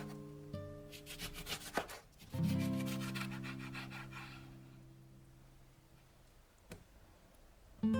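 Gentle acoustic guitar background music, with a fast, rhythmic scraping sound over it through the first half that fades out about halfway through.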